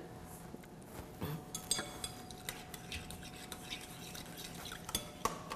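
A metal spoon stirring liquid marinade in a glass mixing bowl, with scattered light clinks of spoon on glass.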